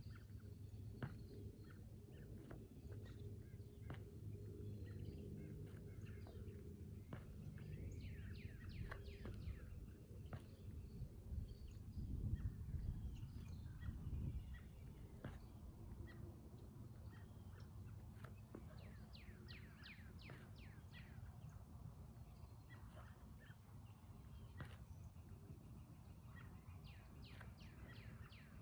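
Faint outdoor birdsong: birds chirping and calling in short quick series of notes over a low rumble that swells briefly about twelve seconds in.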